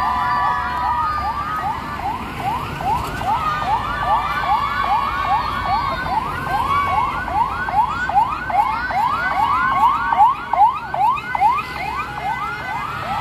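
Sirens on convoy escort vehicles: a fast yelp sweeping up in pitch about three times a second, overlapped by a second, slower wailing siren.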